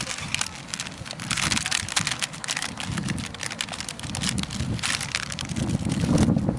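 Plastic instant-ramen packet crinkling and rustling in the hands as it is opened and the noodle block pulled out, with wind buffeting the microphone.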